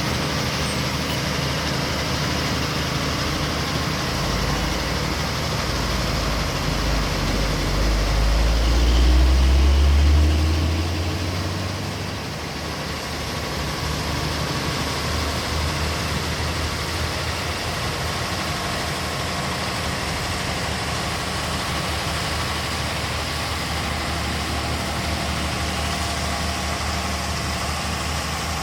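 Diesel engine of heavy road-construction machinery running steadily. A deep low rumble swells up about four seconds in, is loudest around ten seconds, then falls back to a steady running sound.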